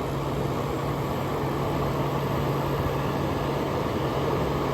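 Fedders 10,000 BTU window air conditioner running on cool: a steady low hum from its Rotorex rotary compressor under the rush of the blower fan. Very quiet for a Rotorex rotary; the fan is a little out of balance.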